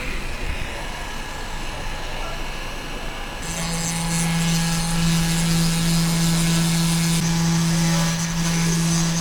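Small high-speed rotary grinder starting about a third of the way in and running with a steady hum and hiss, grinding down the metal holder that covers the USB (U2) charging IC on an iPhone 6s logic board.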